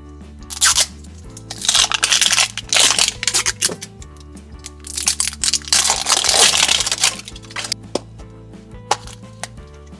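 Crinkly plastic wrapping being peeled and torn off an L.O.L. Surprise Lil Sisters ball in several rustling spells, over background music. A few small clicks near the end as the bare plastic ball is handled to be opened.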